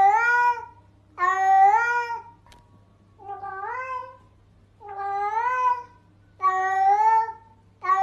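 Domestic cat meowing over and over, about six meows each roughly a second long, every one ending with a rise in pitch, at an even pace of about one every second and a half.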